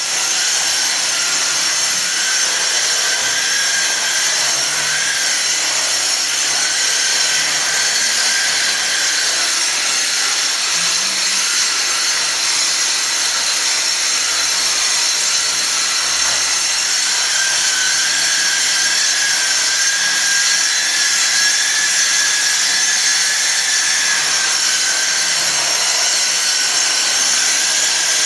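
Handheld electric disc sander running steadily as it sands a terrazzo floor: a continuous grinding hiss with a thin whine that wavers slightly in pitch.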